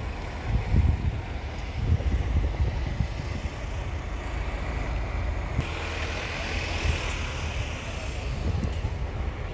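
Low engine rumble with wind buffeting the microphone; a steady hiss comes in a little past halfway.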